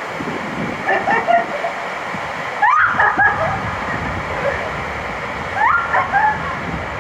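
Steady rush of water and a raft sliding down an enclosed tube waterslide. Riders' high-pitched cries break out over it three times, about a second in, near the middle and near the end.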